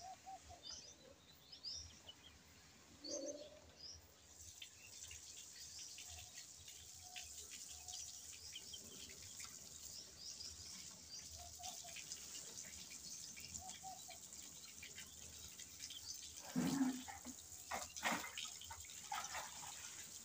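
Faint ambience with a few short bird chirps in the first few seconds over a steady hiss, and a few brief louder knocks about three-quarters of the way through.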